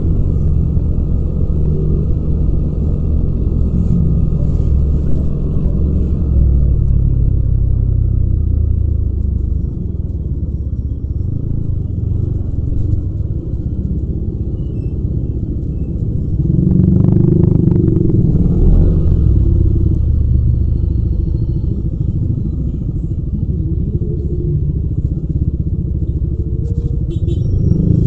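Yamaha Aerox 155 scooter's liquid-cooled four-stroke single-cylinder engine running steadily under way, with no wind noise on the recording. The engine sound swells louder for a couple of seconds a little past the middle.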